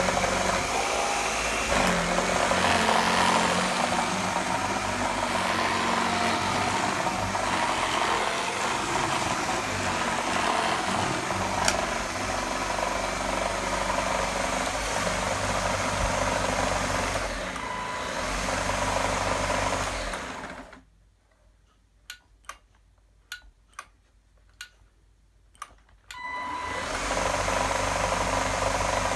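Gtech AirRAM K9 cordless vacuum motor running steadily, then cutting out about two-thirds of the way through. In the gap come about seven sharp clicks, and then the motor starts up again near the end. The cut-out is the fault that the owner puts down to a faulty switch or a bad motor.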